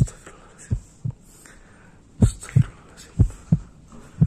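Heartbeat sound effect: low double thumps, lub-dub, roughly one pair a second.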